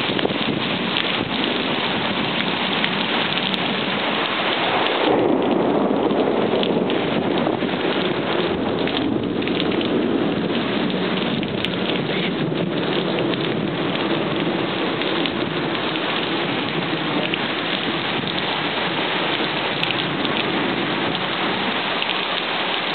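Heavy rain falling steadily in a thunderstorm, with a low roll of thunder building about five seconds in and rumbling away over the next several seconds.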